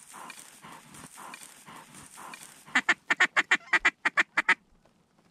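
Canada goose honks: faint calls repeating about three times a second, then, about three seconds in, a fast run of loud, short honks, about six a second, that stops near the end.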